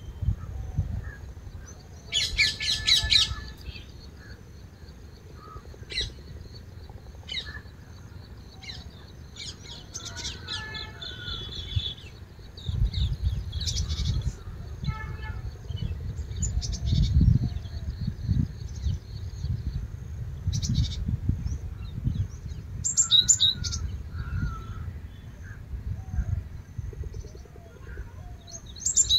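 Birds chirping and calling on and off, with a louder burst of calls about two to three seconds in and another near the end, over an uneven low rumble.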